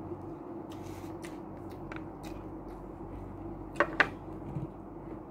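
Eating and handling sounds: scattered soft clicks and rustles of food and a black plastic takeout container being moved, with two sharp clicks close together about four seconds in, over a steady low hum.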